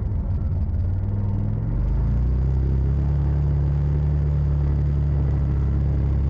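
Side-by-side UTV engine running under way, a low steady drone. About two seconds in the note shifts and gets a little louder, then holds steady.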